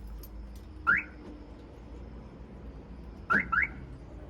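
Newly installed aftermarket car alarm on a Honda Acty kei truck, its siren giving one short upward chirp, then two quick chirps about two and a half seconds later, as the system is armed and disarmed.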